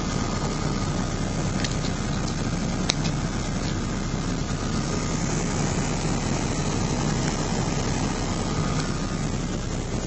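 Lada Kalina cabin heater blower fan running steadily: an even rush of air with a faint thin whine, over a low hum.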